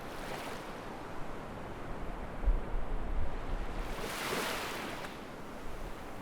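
Surf washing on a beach in strong wind. Low gusts of wind rumble on the microphone a little before the middle, then one wave swells and fades about four seconds in.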